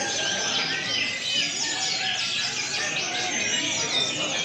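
Many brown-chested jungle flycatchers (SRDC) singing at once in a songbird contest, a dense chorus of overlapping quick chirps and whistles.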